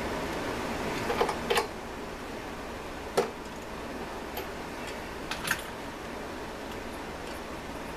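A handful of sharp clicks and clinks of hand tools and small metal parts as a Stihl BG86 leaf blower is taken apart by hand, the loudest a little after three seconds in, over a steady background hiss.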